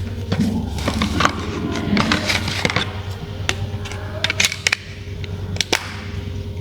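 Irregular sharp clicks and taps of a phone and its plastic parts or packaging being handled, over a steady low hum.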